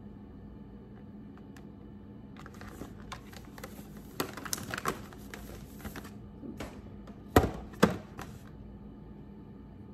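Packaging being handled: a plastic tray and a cardboard box rustle, scrape and click against each other for a few seconds, then two sharp knocks about half a second apart.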